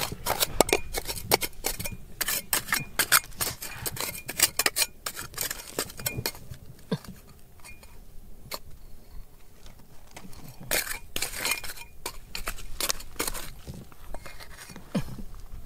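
Rapid, irregular metallic clinks and taps, thinning out midway and picking up again for a couple of seconds.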